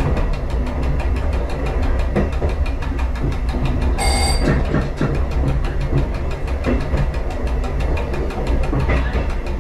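Diesel train running along the track: a steady engine drone mixed with wheel-on-rail rumble and clatter. A brief high-pitched tone sounds about four seconds in.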